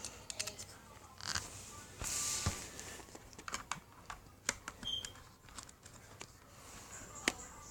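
Scattered light clicks and taps of small laptop parts and screws being handled, with a short rustle about two seconds in and one sharper click near the end.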